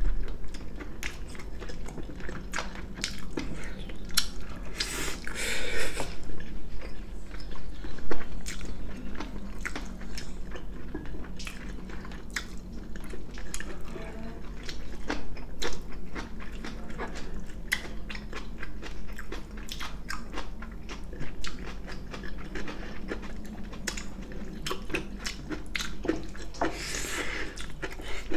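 Close-miked eating sounds of two people chewing pieces of spicy braised chicken: wet chewing and mouth smacks, with frequent small clicks of chopsticks. Two brief louder noisy sounds come about five seconds in and near the end.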